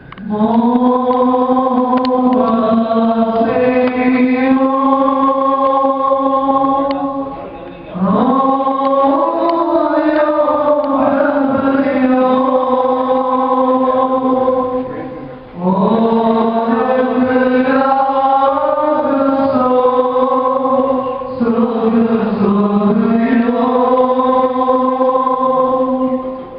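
A group of voices chanting a liturgical hymn in unison, in long phrases with held notes, pausing for a breath about every seven or eight seconds.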